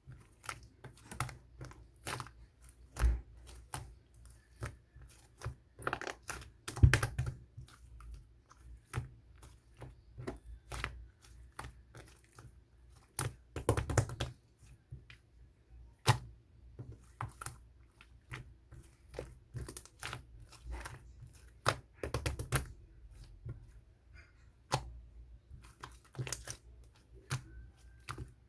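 Slime being squeezed and pressed by hand, making a steady run of irregular sticky pops and clicks, with a few louder squelching presses.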